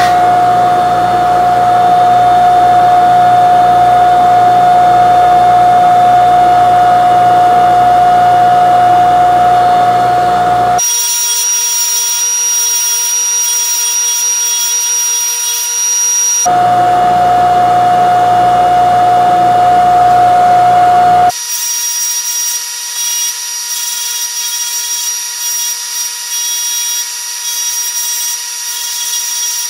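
Bench polisher's electric motor running with a steady whine while a silver spoon is pressed against the spinning buffing wheel. The tone and loudness change abruptly three times.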